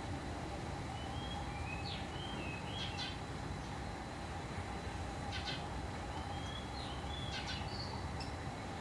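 A songbird singing the same short phrase twice, a few seconds apart: a couple of high sliding whistles followed by a quick run of notes. A steady low hum runs underneath.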